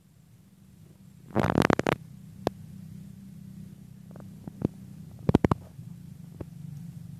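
Handling noise of a handheld phone with a clip-on macro lens: a cluster of rapid knocks and rubbing clicks about a second and a half in, another cluster about five seconds in, and single clicks between, over a low steady hum.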